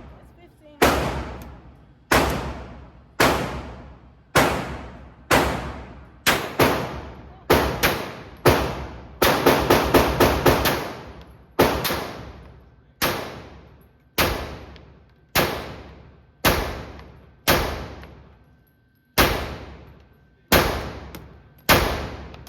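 Glock 25 pistol firing .380 ACP, about two dozen shots, mostly about one a second with a quick string of about seven near the middle; each shot trails off in a long echo.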